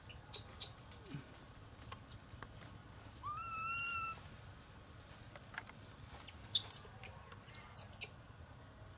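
A single macaque coo call about three seconds in, rising and then held level for about a second. Sharp clicks are scattered through, loudest in a cluster of four or five between about six and a half and eight seconds.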